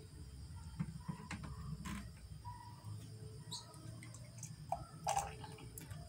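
Faint trickle of strained juice poured from a blender jar through its filter into a glass, with a few light clicks.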